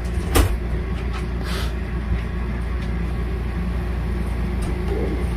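Steady low hum of a machine running in the room, with a sharp click about half a second in and a couple of fainter ticks as the plastic water bottle and feeding syringe are handled.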